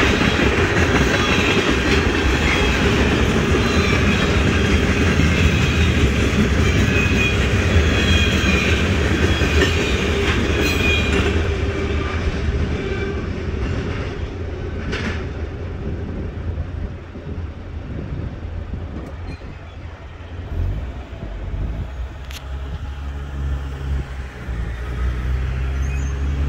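Tank cars of a CSX freight train rolling past over the rails with a clickety-clack rumble and thin high-pitched squeals. The rumble fades away in the second half as the last car clears. A low engine hum from road vehicles rises near the end.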